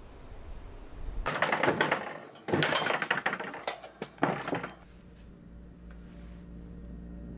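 A door rattling and clattering open in several loud bursts, from about a second in until nearly five seconds. A faint low music drone then comes in and slowly grows.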